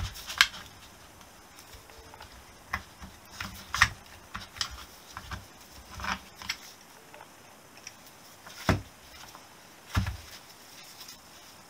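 Scattered clicks, scrapes and knocks of a Honda XL250S's rear drum-brake shoes and return springs being worked off the brake backing plate by hand. A knock near the end as the shoe pair is set down on the bench.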